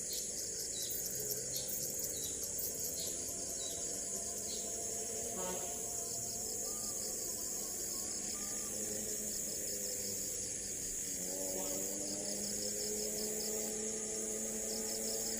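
Steady chorus of crickets and other insects trilling with a fast pulse, with a short high chirp repeating about twice a second during the first few seconds.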